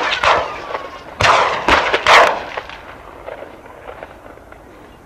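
Gunshots fired at running wild boar: four sharp shots in the first two seconds or so, each with an echoing tail that fades away.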